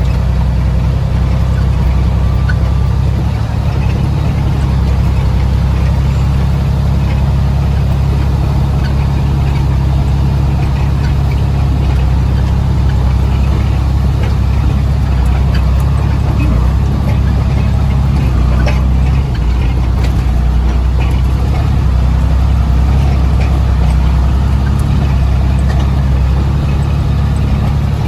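Heavy machine's diesel engine running steadily under a deep low rumble, with a few faint clicks and knocks over it.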